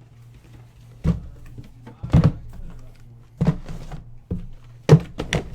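Cardboard boxes of trading cards being handled and set down on a table: about six dull thunks at uneven intervals, the loudest near the end.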